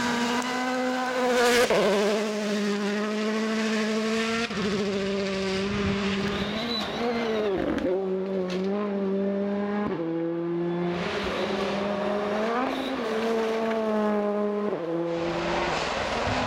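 Rally cars' turbocharged four-cylinder engines at high revs on a gravel stage. The engine pitch climbs and drops sharply several times as the drivers shift gears and lift off, with gravel spray and tyre noise over it.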